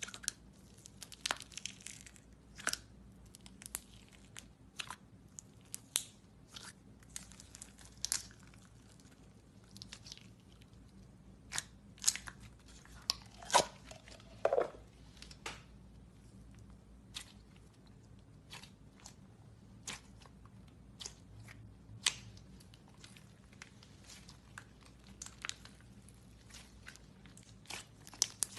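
Slime being squeezed and poked by hand, giving irregular sharp pops and clicks, a few louder ones near the middle.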